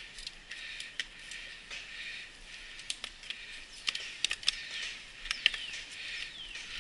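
Mountain bike rolling along a dirt trail: sharp clicks and rattles of the bike jolting over bumps, most of them in the middle stretch, over a steady high hiss, with a couple of short falling squeaks near the end.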